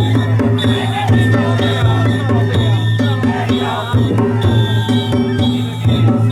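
Danjiri festival music (narimono): taiko drums and small hand-struck gongs (kane) playing continuously.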